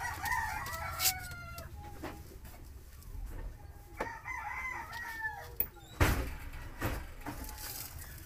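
Two long wavering animal calls, each about a second and a half, one at the start and one about four seconds in, over a low steady hum; a few sharp knocks come near six and seven seconds in.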